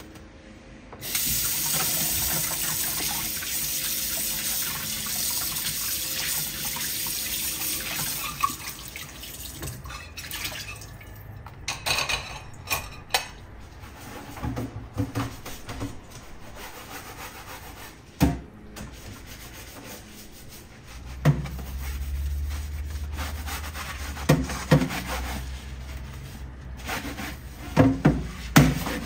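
Kitchen tap turned on about a second in, water running steadily into a stainless steel sink over a plate being washed, easing off after about eight seconds. Then scattered knocks and clinks of dishware and scrubbing, with a soapy sponge working over a mesh range hood filter near the end.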